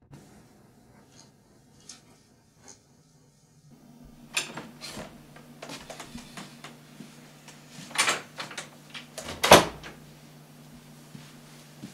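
A door being opened and shut: latch and handle clicks, scattered knocks, and two sharp bangs in the second half, the loudest at about nine and a half seconds.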